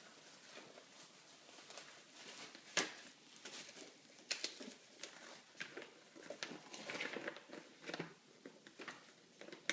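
Unboxed sport-stacking gear and its plastic packaging being handled: rustling and crinkling with scattered sharp clicks, the loudest about three seconds in.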